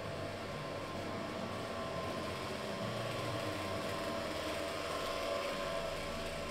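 Steady background noise with a faint hum running through it; no single sound stands out.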